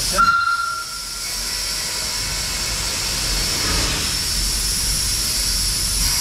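Cockerill 18-ton vertical-boilered steam shunting locomotive moving off slowly: a steady steam hiss from the open cylinder drain cocks over a low running rumble. A short high-pitched squeal sounds for about a second right at the start.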